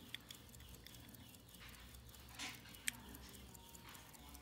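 Near silence with a few faint clicks, then a short rustle about two and a half seconds in, followed at once by a sharper click.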